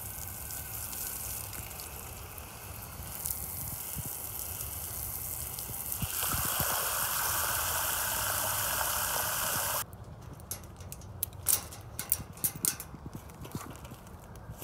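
Garden hose spray nozzle hissing as it sprays water over a wire cage floor; about six seconds in it grows louder as the stream fills a water bowl. The spray cuts off suddenly near ten seconds, followed by a few sharp clicks and taps.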